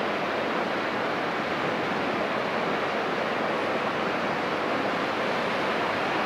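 Steady rushing of water like surf, an even hiss with no engine tone or distinct events standing out.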